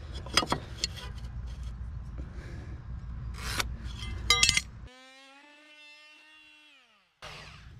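Scraping and a few sharp knocks. About five seconds in comes an oscillating multi-tool's steady hum, which drops in pitch and stops as the tool winds down.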